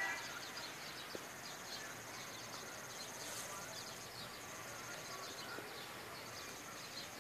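Garden bird ambience: many small birds chirping in quick, overlapping calls. Over them runs a high, fast trill that breaks off and starts again several times.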